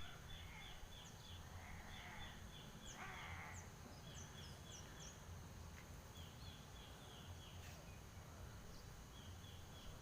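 Faint ambience with a steady low hum and runs of quick, short high chirps, about five or six to a run, repeated several times. There are two brief rustles a couple of seconds in.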